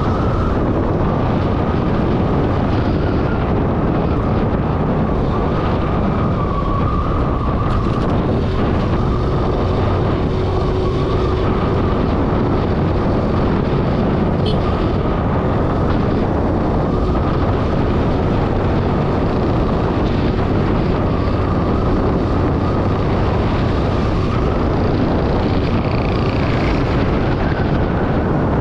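TVS Jupiter scooter on the move: steady wind rush on the microphone mixed with the scooter's engine and road noise.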